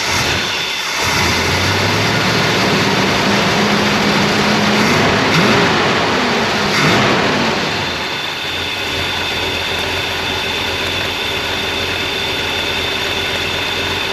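Plymouth Road Runner V8 running on its own newly installed gas tank and fuel pump for the first time in about 25 years. It is revved briefly twice around the middle, then settles to a steady idle.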